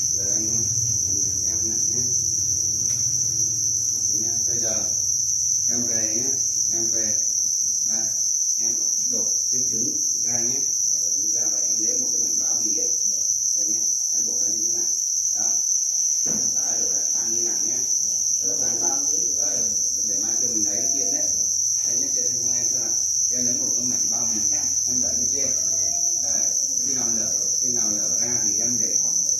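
Dense, unbroken chorus of many farmed black crickets chirping in their breeding trays, a steady high-pitched trill.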